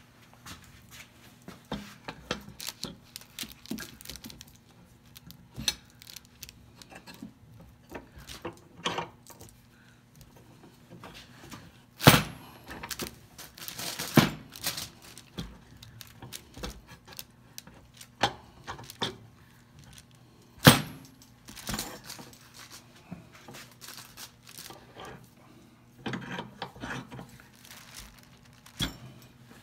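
Old iron C-clamps being handled and adjusted on a freshly glued-up wooden block: irregular metallic clinks, clicks and knocks, with two sharper knocks about a third and two-thirds of the way through.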